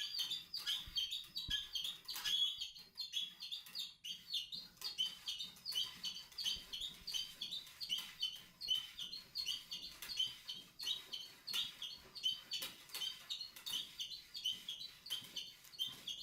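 Felt cleaning pad on a cleaning rod being stroked back and forth through a shotgun barrel, giving a steady run of short, high squeaks, about two or three a second.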